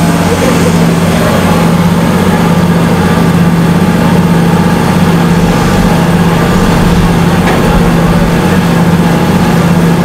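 Steady motor hum from a trash incinerator's water system, with water gushing from hoses and splashing into the collecting tank.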